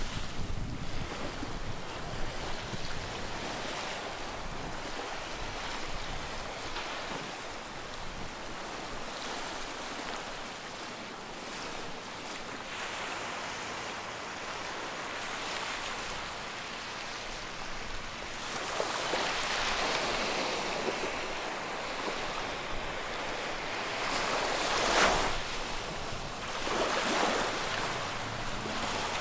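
Sea waves washing onto the shore in a steady wash, with three louder surges in the second half. Wind buffets the microphone near the start.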